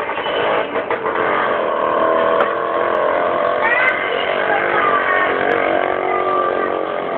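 Girls singing karaoke into a microphone over backing music, played loud through a speaker.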